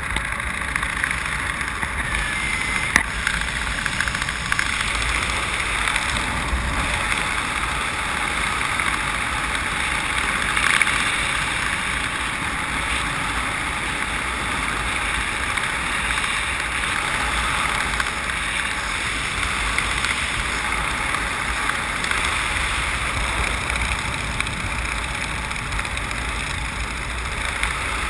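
Freefall wind rushing over a body-worn camera's microphone: a steady, even rush of wind noise with low buffeting, swelling briefly about eleven seconds in.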